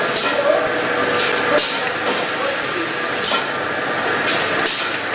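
Toffee candy production line running: steady machine noise, with a short burst of hiss about every one and a half seconds as the machine cycles.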